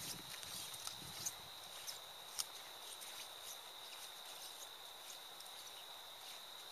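Footsteps on a sandy trail, faint and fading in the first second or so as the walkers move off. Scattered sharp ticks continue over a steady high-pitched whine and hiss.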